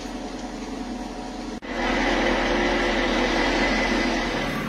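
Crane engine running steadily while it holds a load on its slings. About one and a half seconds in there is a sudden cut, after which the engine is louder, with a thin steady whine over it.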